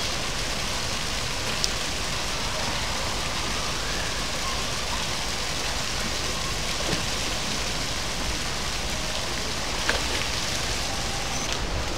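Steady hiss of splashing water from the swimming pool's fountain and water jets, with a few brief sharp ticks.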